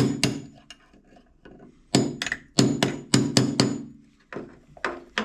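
Hammer striking metal on a car door hinge while the old hinge bushings are knocked out for replacement. A couple of blows at the start, then four hard ringing blows about half a second apart, then lighter taps near the end.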